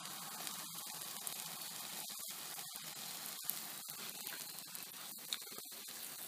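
Smoked southern cod fillets sizzling on a hot barbecue hotplate: a steady hiss with a few faint crackles.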